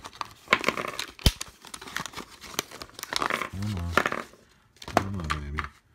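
Clear plastic blister packaging crinkling and crackling as it is handled and pulled apart, with scattered clicks and one sharp knock about a second in.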